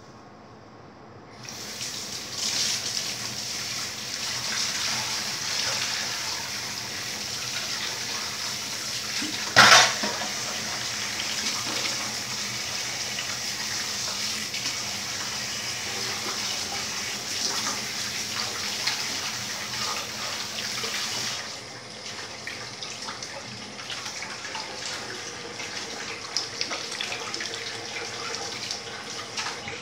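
Kitchen tap running into a stainless steel sink, with hands washing under the stream. The water comes on about a second and a half in, a single sharp knock against the sink stands out about a third of the way through, and the flow grows quieter about two-thirds of the way through.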